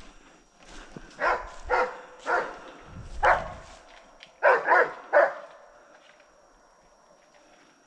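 A German Shepherd barking in short, separate barks, about seven of them over some four seconds, then stopping. It is barking at an animal it has found, a porcupine.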